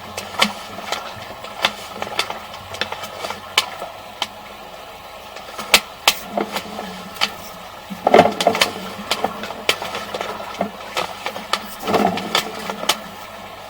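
Irregular clicks and knocks from a sewer camera's push cable being fed down a drain line, over a steady low hum, with denser clusters of knocking about eight and twelve seconds in.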